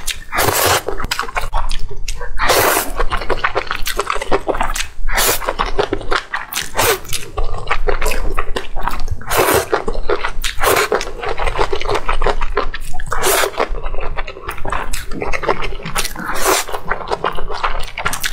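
Close-miked eating: glass noodles slurped off chopsticks and chewed, with wet sticky clicking of the mouth. Louder slurps and bites come every second or two.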